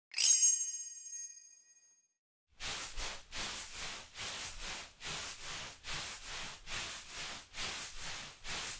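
A single bell-like electronic ding that rings out and fades away over about two seconds. After a short silence comes a steady rhythm of hissing noise pulses, about three a second: the sampled intro of a tracker module tune.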